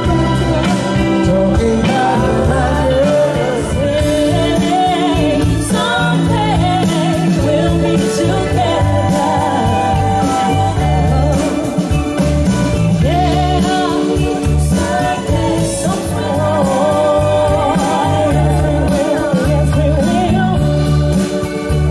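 Live soul band playing a Motown song, with a lead singer over a steady bass and drum beat.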